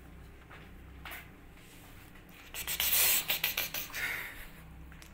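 Kittens scrabbling and scratching on cardboard close to the microphone: faint scratching at first, then a loud burst of scratching and rustling about two and a half seconds in that lasts about a second and a half.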